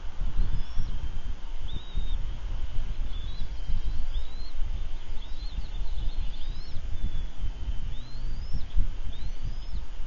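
Bald eagle chicks peeping: thin, high calls that rise and fall, repeated every second or so, over a steady low rumble on the microphone.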